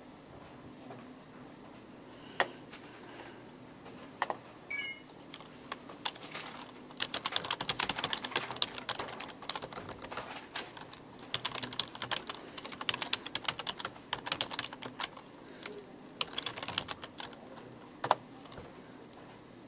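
Typing on a computer keyboard: a few single key presses, then fast runs of keystrokes starting about a third of the way in, with short pauses between runs.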